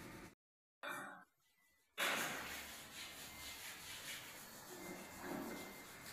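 A cloth rag rubbed in repeated strokes over a wooden door panel, working in stain or polish. The sound cuts out near the start and comes back suddenly about two seconds in.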